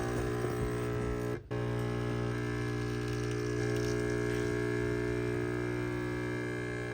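Neretva espresso machine's pump running steadily as it pulls a double espresso: a steady humming buzz that cuts out for a moment about a second and a half in, then resumes.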